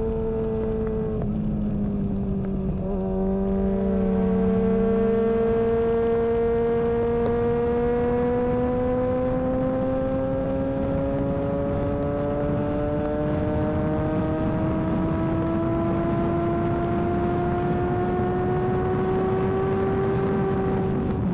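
Yamaha R6's 600 cc inline-four engine pulling hard at high revs, its pitch dipping briefly in the first few seconds and then climbing slowly and steadily as the bike gathers speed, over a rush of wind noise.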